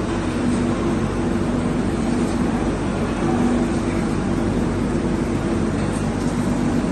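Steam boiler and automatic kettle machinery running: a steady mechanical drone with a low hum that comes and goes.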